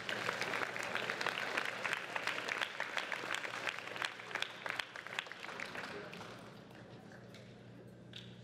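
Crowd applauding: a burst of many hands clapping that starts at once, holds for about five seconds and then dies away.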